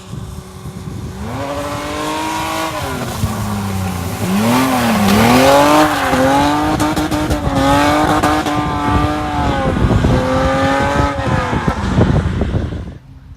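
BMW E30's M20 straight-six revving hard during a drift, heard from inside the car: the engine note climbs, dips and swoops as the throttle is worked, over road and tyre noise from the wet surface, then drops away abruptly near the end.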